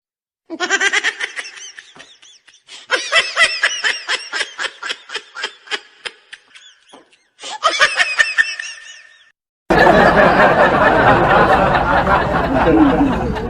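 A person laughing in a long run of quick, repeated bursts. About ten seconds in, the laughter gives way to a loud, dense rush of noise.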